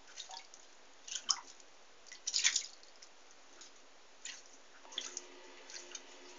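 Light, irregular drips and small splashes of water in a bathtub as a fishing spoon lure is pulled through it. A faint steady hum comes in about five seconds in.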